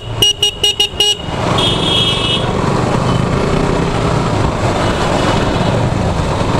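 A motorcycle horn gives a quick string of short toots in the first second. A second, higher-pitched horn sounds briefly about two seconds in, and a motorcycle engine and street traffic run on steadily underneath.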